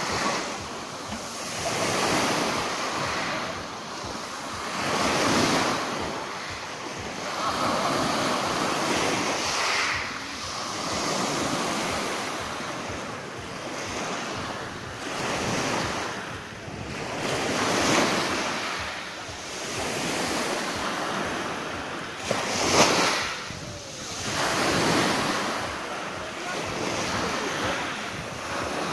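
Small sea waves breaking on a pebble beach and washing up and back over the stones, swelling and fading every two to three seconds. One sharper, louder splash stands out about three-quarters of the way through.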